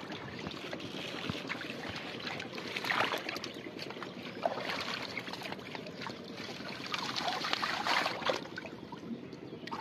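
Shallow muddy water sloshing and splashing as hands and feet stir through it, feeling in the mud for fish. There are louder splashes about three seconds in and again after about seven seconds.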